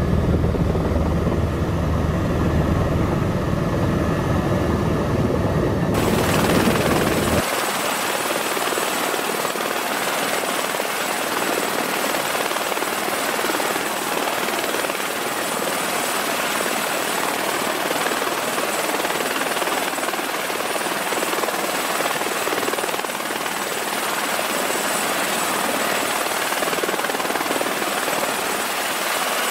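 Helicopter heard from inside the cabin while landing: a deep, steady rumble of rotor and engine. About seven seconds in it cuts to a Eurocopter EC130 (H130) running on the pad with its main rotor turning: a steady rushing noise with a thin high turbine whine over it.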